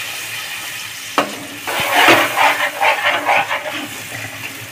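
Steel spatula stirring and scraping yogurt-and-spice gravy in a nonstick kadhai over a faint sizzle. There is a tap about a second in, then a quick run of scraping strokes. The curd is kept moving continuously so it does not split before it comes to a boil.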